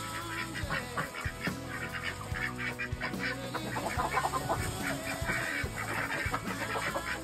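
Ducks and chickens calling in a coop, a string of short quacks and clucks, over background music.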